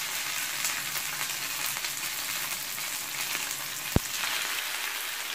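Lumpia shanghai (spring rolls) deep-frying in hot oil in a pan: a steady sizzle, with a single sharp click about four seconds in.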